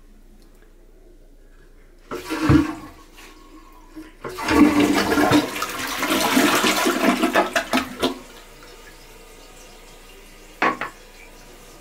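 Toilet flushing: a short rush of water about two seconds in, then the main flush rushes for about four seconds and dies back to a low hiss. A brief sharp knock comes near the end.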